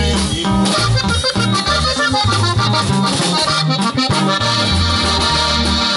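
Live norteño band playing an instrumental passage of a corrido. The button accordion carries the melody over strummed guitar, a steady low bass line and a drum kit.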